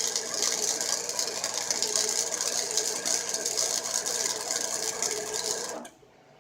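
Flux-core arc welding with a Chicago Electric 90 amp flux-core wire welder: the arc crackles and sizzles steadily while laying a bead, then stops abruptly near the end.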